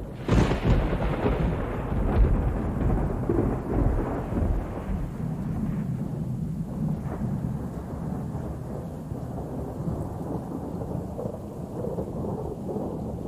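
A steady low rumble with rustling and scattered knocks, loudest in the first couple of seconds.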